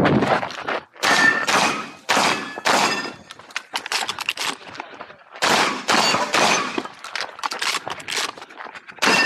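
Shotgun shots fired in a quick string, each a sharp crack followed by a metallic ringing that fits steel targets being hit. The shots come in two groups, with a lull of about two seconds in the middle.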